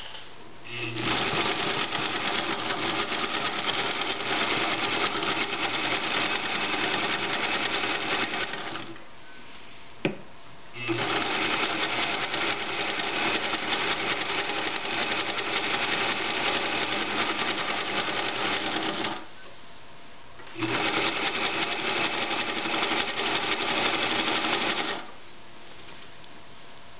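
1956 Pfaff 130-6 sewing machine stitching a decorative pattern with its Automatic 50010 cam-stack embroidery attachment engaged on cam 1. It runs in three spells of several seconds with short pauses between them, and there is a single click in the first pause.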